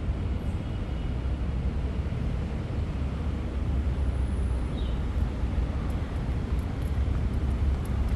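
Outdoor ambience: a steady low rumble with a few faint high chirps, one about two-thirds of the way in.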